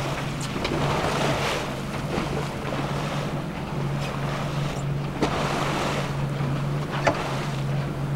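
A boat's motor running steadily with a low hum, under wind on the microphone and the wash of water around the hull. A few short knocks stand out, the clearest about five and seven seconds in.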